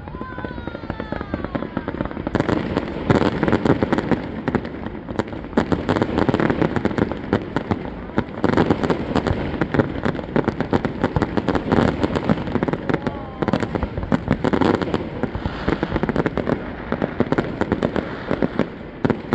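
Fireworks display: a falling whistle near the start, then from about two seconds in a dense, continuous run of bangs and crackling, with another brief falling whistle about two-thirds of the way through.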